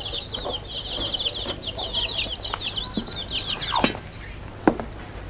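Birds chirping in a dense, continuous stream of short, high, falling peeps that thins out after about four seconds. A couple of sharp knocks come near the end.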